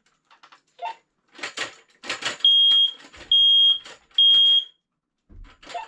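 Ceiling smoke alarm sounding under its test button: three loud, high-pitched beeps about half a second each, starting about two and a half seconds in. This is the three-beep temporal pattern of a smoke alarm in alarm mode, and the alarm is working.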